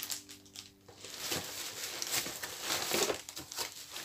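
Packaging rustling and crinkling as an empty cardboard cereal box is handled and pulled out of a plastic rubbish bag, with a small click at the start; the crinkling is irregular and swells toward the end.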